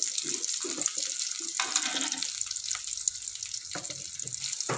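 Shallots, garlic and green chillies sizzling steadily in hot oil in an aluminium wok, with a metal ladle scraping and knocking against the pan now and then as it stirs.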